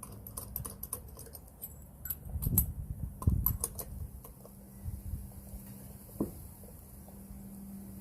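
Hand tightening of a truck wheel's lug nuts: a scatter of light metallic clicks and taps from the wrench, socket and nuts, with two heavier knocks about two and a half and three and a half seconds in and another near six seconds.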